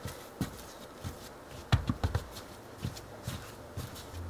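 Bread dough being kneaded by hand on a countertop: irregular soft thumps and slaps of the dough pressed and folded against the surface, with a quick run of louder thumps about two seconds in. A steady low hum starts near the end.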